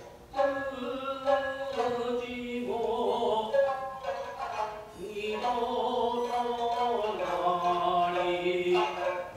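Chanted narration for a Japanese puppet play: a voice sings long, held, wavering lines that slide in pitch, with a few sharp plucked strikes from the accompanying shamisen.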